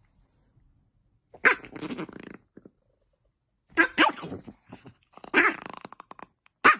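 Dog growling and barking from under a blanket in short bursts, the first about a second and a half in, then three more over the following five seconds.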